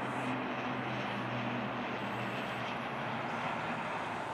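Dornier 328 turboprop airliner on final approach, gear down: a steady drone from its twin turboprop engines and propellers, a low propeller hum under a broad rush of engine noise.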